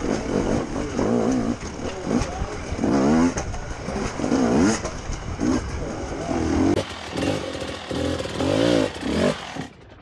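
Enduro motorcycle engine, close to the microphone, revving up and down again and again in short throttle bursts as the bike is worked over tyres and rocks. The sound cuts off suddenly near the end.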